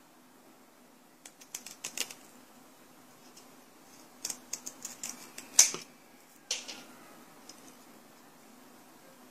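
Scissors snipping through a photosensitive optical stamp plate to trim off its excess edges: short, crisp snips in small clusters, the loudest a little past halfway through.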